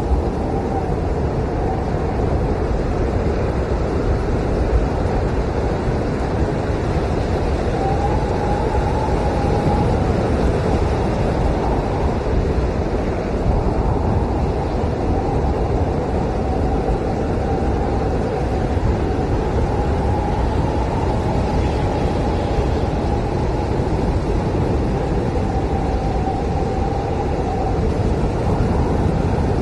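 Blizzard wind howling steadily, with a faint wavering whistle that swells and fades over several seconds.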